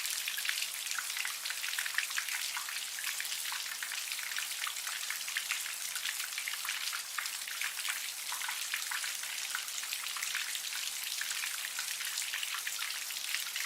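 Light rain shower: a steady patter of many small raindrops pattering on a surface, crisp and high, with no wind or thunder.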